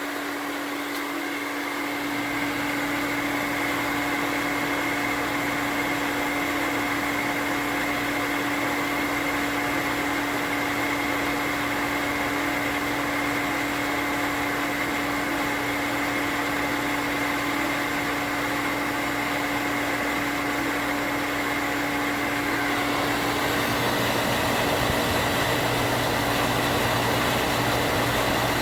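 A 1-horsepower cast-iron booster pump runs steadily, pumping up the pressure tank, with a constant motor hum. About three-quarters of the way through, its tone changes and it gets slightly louder.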